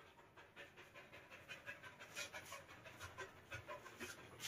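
Faint, rapid panting of a Samoyed dog after a run, about four breaths a second.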